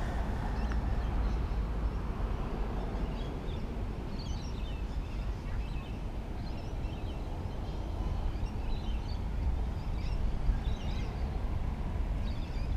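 Wind rumbling on the camera microphone, with birds chirping in short, high calls throughout.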